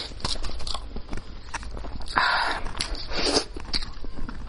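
Close-miked eating sounds from picking meat off a spicy sheep's head: wet mouth clicks and smacks, with two longer noisy stretches about two and three seconds in.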